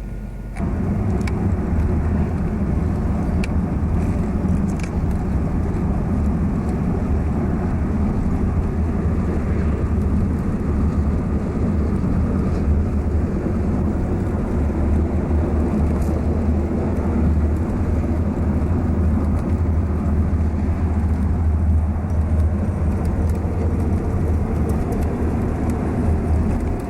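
Steady low rumble of a car on the move, engine and road noise, starting abruptly about half a second in.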